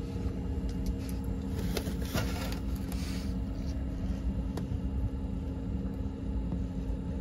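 Hands handling a small ice-fishing jigging rod and tackle, giving a few light clicks and crackles in the first few seconds and one more click midway, over a steady low rumble with a faint hum.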